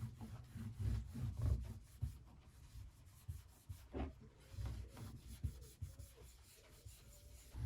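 Hands rubbing and handling wood on the guitar being worked on: uneven rubbing strokes with dull low knocks.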